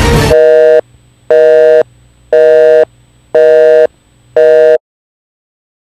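Music cuts off abruptly just after the start, then a telephone busy-signal tone beeps five times, evenly, about one beep a second.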